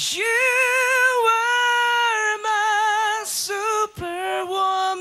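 A man singing unaccompanied into a handheld microphone, holding long high notes with a wide vibrato. The pitch steps down slightly from note to note, with short breaks for breath about two and a half, three and a half and four seconds in.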